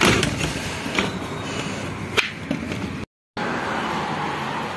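A sliding window being moved along its track, with a few sharp clicks and knocks from the frame, the loudest about two seconds in. After a brief cut, steady street ambience.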